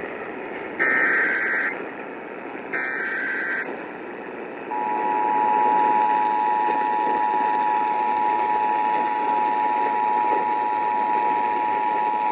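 Emergency Alert System SAME header: two short warbling data bursts a second apart, closing the three-burst header, then the EAS attention signal, a steady two-tone beep (853 and 960 Hz) that holds on, over a constant radio hiss. It opens a Required Monthly Test.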